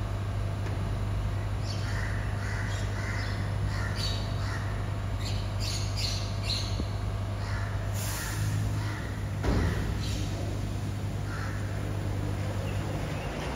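Birds calling repeatedly over the steady low hum of a BYD electric garbage truck standing with its systems running. A single loud thud about nine and a half seconds in, as the truck's cab door is shut.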